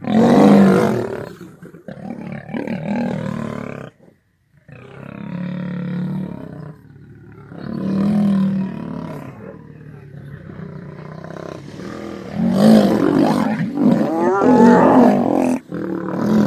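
Male lions growling and roaring at each other in repeated loud bouts, with a short break about four seconds in: an aggressive face-off between rival males. The sounds grow denser and louder after about twelve seconds as the lions clash.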